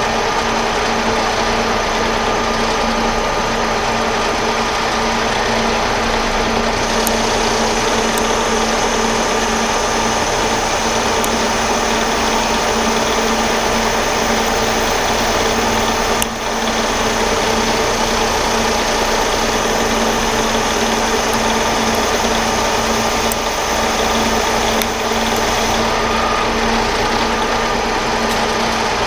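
Metal lathe running steadily under power while taking an 80-thousandths cut on a steel part, a constant motor and gear whine over the hiss of the cut.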